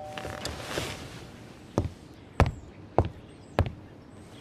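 A two-note doorbell chime dying away at the start, then four evenly spaced footsteps on a hard floor, about a step every half second, as someone walks to answer the door.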